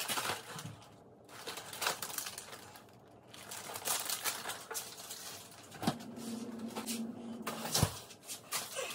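Packaging being handled: a cardboard snack box and plastic wrappers rustling and crinkling, with light knocks. A little past halfway a steady low hum lasts about a second and a half, with a knock at its start and another at its end.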